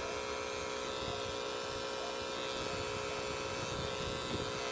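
Tattoo machine buzzing steadily as its needle works on skin.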